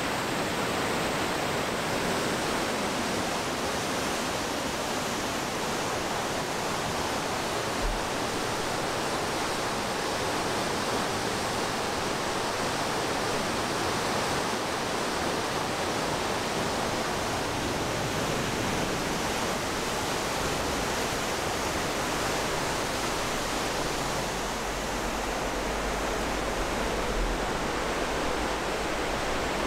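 Water pouring through a river weir: a steady, dense rush of churning white water.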